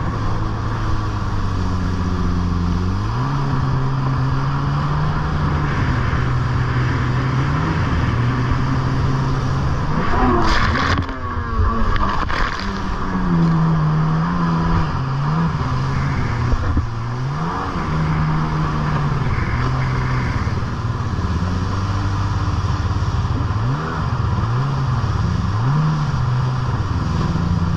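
Kawasaki stand-up jet ski engine running hard, its pitch climbing and dropping as the throttle changes, over a hiss of water spray. About ten seconds in there is a short, loud splashing stretch where the engine pitch sweeps down and back up.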